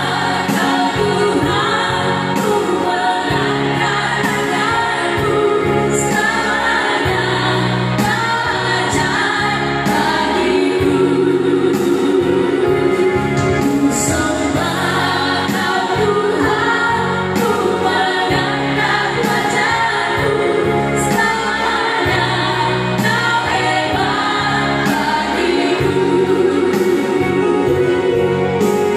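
A group of four women singing a Christian praise song together into microphones, in harmony, with electronic keyboard accompaniment.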